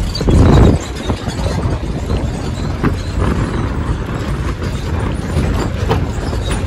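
A car driving on a rough, unpaved rocky mountain road: steady engine and road rumble, with a loud low rumble or bump about half a second in.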